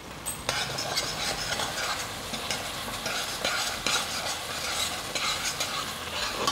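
Metal spoon stirring a thick tomato-and-onion sofrito in a stainless steel pan, scraping against the pan over a low sizzle. The stirring starts about half a second in.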